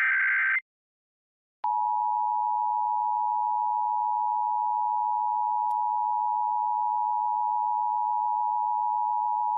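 Emergency Alert System broadcast: the last SAME header data burst, a harsh digital warble, ends half a second in. About a second later the EAS two-tone attention signal (853 and 960 Hz sounded together) starts and holds steady, announcing a statewide required monthly test.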